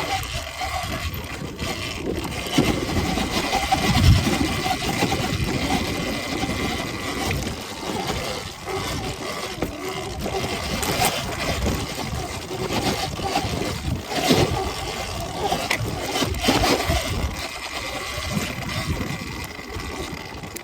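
Sur-Ron Ultra Bee electric dirt bike being ridden over rough off-road ground, with a steady high whine and irregular knocks and rattles.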